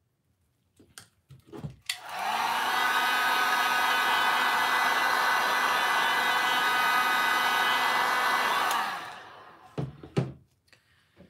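Heat gun blowing steadily for about seven seconds over wet epoxy resin, its fan motor spinning up as it switches on and winding down as it switches off. A few short handling knocks come just before and after.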